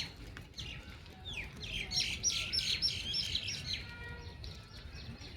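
Small bird chirping: a quick run of about eight short, high, falling notes, roughly three a second, between about one and four seconds in, with scattered chirps before and after.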